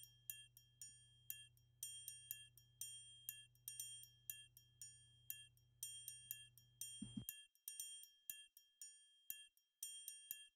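Faint background music of quick, high, tinkling bell-like notes, with a low hum underneath that stops about seven seconds in.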